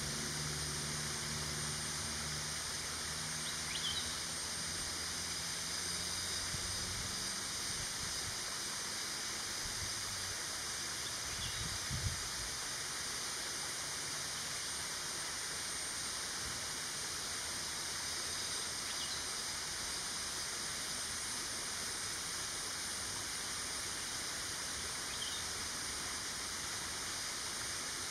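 Steady outdoor forest ambience: an even hiss with a faint, constant high-pitched drone. A low engine hum fades out in the first several seconds. There is a soft bump about twelve seconds in, and a few faint brief chirps.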